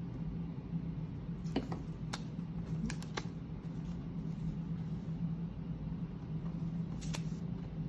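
Light paper handling as construction-paper legs are pressed onto a paper plate: a few short clicks and taps, bunched in the first half and one more near the end, over a steady low hum.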